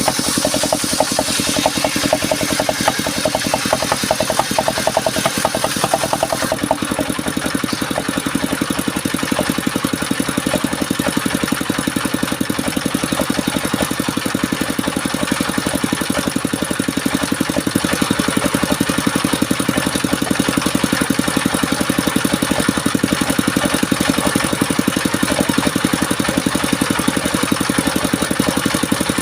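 Engine of a wood-cutting saw machine running steadily at a constant speed, with a high hiss that drops away about six and a half seconds in.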